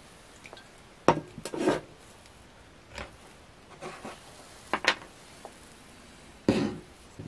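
Objects handled on a worktop: a spray can and the aluminium housing of an air-assist pump knocked and set down, giving about five short knocks and clatters.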